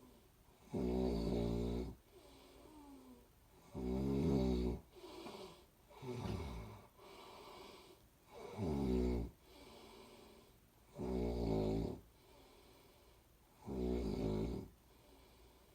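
Snoring in a slow, regular rhythm: six loud snores, about one every two and a half seconds, with softer breathing between them. A few of the snores fall in pitch as they go.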